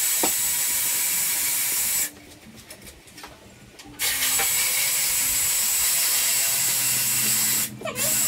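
Power tool running in bursts with a steady hiss and a faint high whine: about two seconds, a pause, nearly four seconds, a short break, then again near the end.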